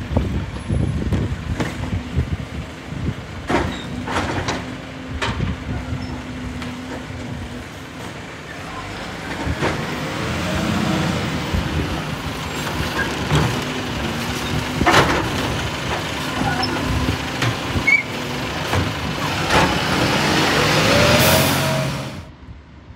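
Volvo side-loader garbage truck collecting wheelie bins: diesel engine running, a steady hum twice for several seconds as the lifting arm works, and a number of sharp bangs from bins knocking against the hopper. A long hiss of air from the brakes rises near the end.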